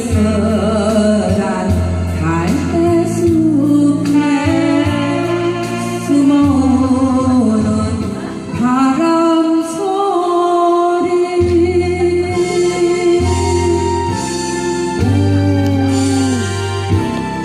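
A woman singing a slow Korean song over instrumental accompaniment with a steady bass line. The voice ends shortly before the close while the accompaniment carries on.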